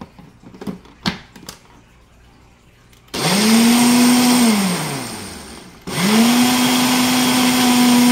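Ninja Professional blender pulsed twice with a single-serve cup of breadcrumbs and water. Each time the motor jumps straight up to a steady high-speed whir and then winds down in falling pitch once the button is let go; the second pulse is still at full speed at the end. A few light clicks come first as the cup is set on the base.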